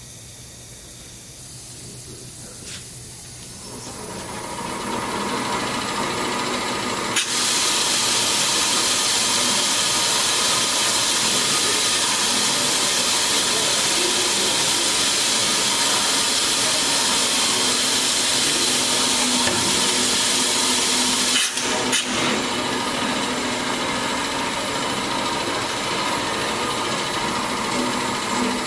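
Roll-In TF1420 pneumatic-feed vertical bandsaw running: its sound rises over a few seconds, then a loud steady hiss of compressed air from the pneumatic head feed sets in suddenly about a quarter of the way in. A brief click about three quarters through, after which the hiss goes on slightly lower.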